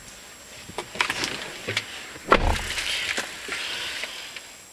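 A person getting into a car's driver seat: a few clicks and rustles, then the car door shutting with a heavy thud about two and a half seconds in, followed by clothing and seat rustling as she settles.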